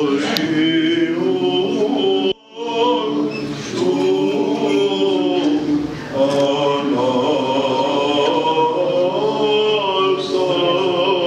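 Male chanters singing Greek Orthodox Byzantine chant, unaccompanied, breaking off briefly about two seconds in.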